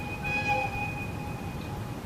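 A horn or whistle blast, a held multi-note tone that starts a quarter second in and fades out near the end, over a steady low rumble and hiss.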